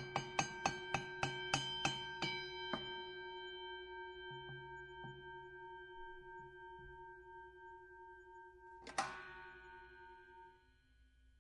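Boxing bell struck rapidly about nine times, roughly three dings a second, then left ringing and slowly dying away. One more single ding about nine seconds in rings out.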